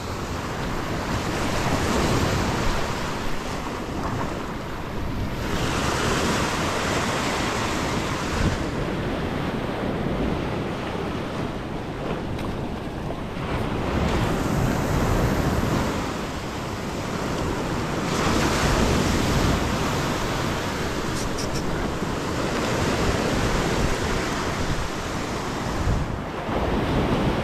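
Small surf breaking and washing up a sandy beach, the wash swelling and fading every few seconds, with wind on the microphone.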